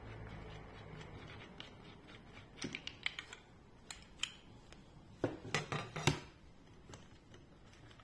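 Light clicks and knocks of plastic and metal parts as a laser level's wall-mount bracket is handled and taken off. A quick run of clicks starts about two and a half seconds in, and louder knocks follow around five to six seconds in.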